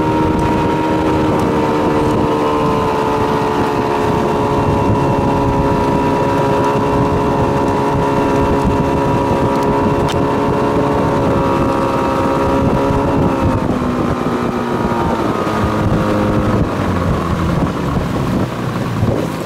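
A small motorboat's engine running steadily under way, with wind and water noise. About two thirds of the way through, the engine note drops.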